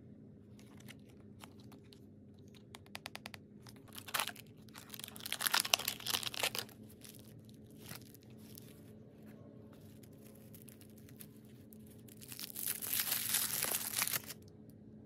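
Toy packaging being torn open and unwrapped by hand: paper and tissue paper tearing and crinkling with plastic crackle, in two spells, the first about four seconds in and the second near the end, after a quick run of small ticks.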